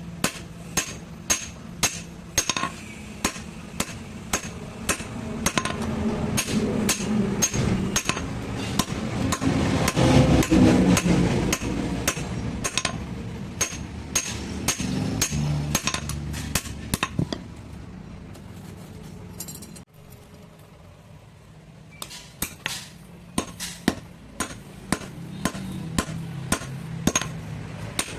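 A blacksmith's hammer striking metal in a steady run of sharp blows, about three a second, while shaping a small sheet-metal sieve. A louder rushing noise swells in the middle, and the hammering stops for a few seconds past the halfway point before starting again.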